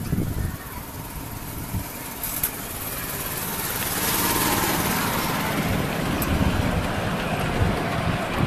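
Miniature railway train moving off, its wheels rumbling on the rails with wind buffeting the microphone. It grows louder about four seconds in as the train picks up speed.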